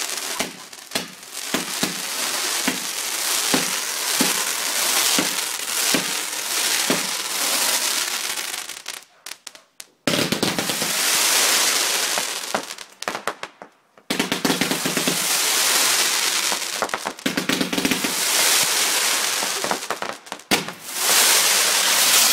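Fireworks crackling and hissing, a dense run of sharp pops and crackles that breaks off twice and starts again abruptly.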